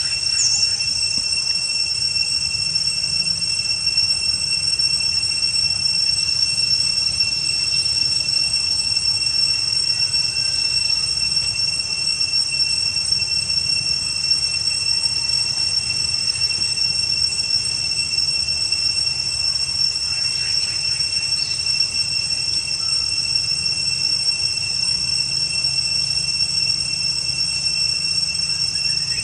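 Steady insect chorus: a continuous high-pitched whine at several fixed pitches that does not change.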